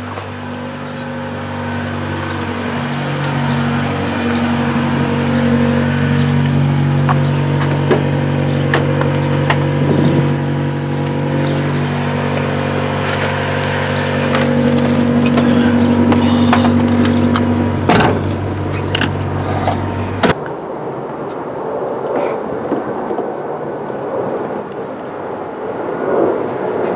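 Vehicle engine running while driving, a steady low hum that shifts pitch in steps. It cuts off suddenly about 20 seconds in, followed by rustling and scraping noises.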